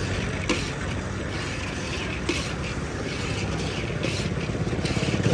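A motor running with a fast, even pulse that grows louder near the end, with a few sharp clicks over it.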